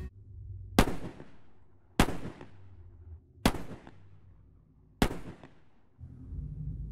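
Four handgun shots about a second and a half apart, each sharp crack fading away in a short ringing tail, over a low rumble that swells near the end.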